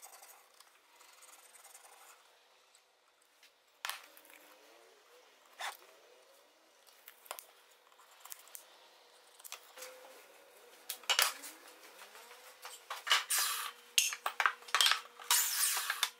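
Pencil scratching on hickory boards while a spoke pattern is traced, with a couple of sharp knocks. In the last few seconds wooden boards clatter, knock and scrape as they are handled, louder and quicker.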